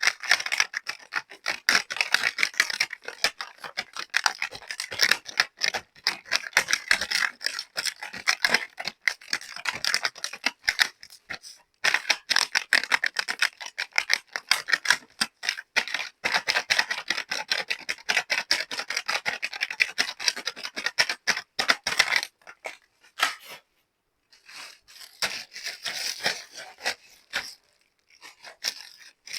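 Plastic packaging and small plastic toy pieces being handled: rapid crinkling, crackling and scraping that runs in long stretches and stops briefly several times.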